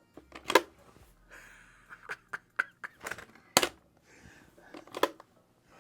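Sharp clicks and taps of hard door-closer parts being handled: three louder knocks about half a second, three and a half, and five seconds in, with lighter ticks between them.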